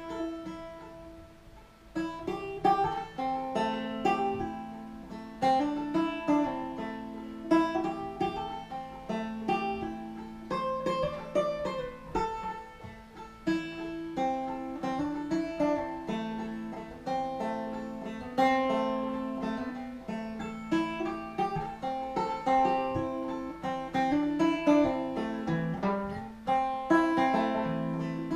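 Solo five-string banjo fingerpicked in a bluegrass style, a quick run of bright plucked notes. It opens with a few sparse notes and fills out into steady, busy picking about two seconds in.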